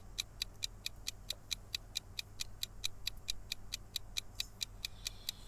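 Quiz countdown-timer sound effect: a clock ticking at an even pace, about four to five short ticks a second, while the answer time runs down.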